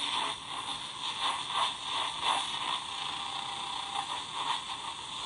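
Hiss and static from a Tecsun R9012 pocket radio's speaker while its AM broadcast band is hand-tuned between stations, with an irregular fluttering pulse in the noise and no clear station coming through.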